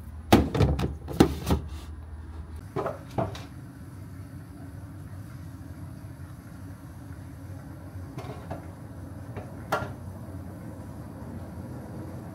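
Lidded plastic food-storage containers being handled while cucumbers are packed into them: a quick run of sharp plastic knocks and clacks in the first second or so, two more about three seconds in, and a few light clicks later. A steady low hum runs underneath.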